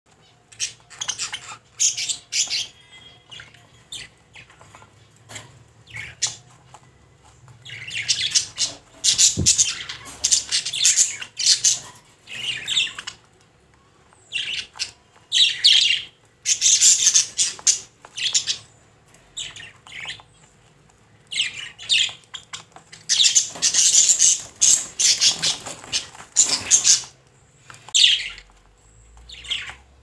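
Budgerigar chattering and squawking: clusters of short, harsh, high-pitched calls broken by brief pauses.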